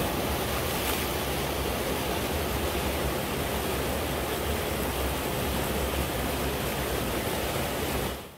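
Creek water rushing steadily through a flood canal, fading out just before the end.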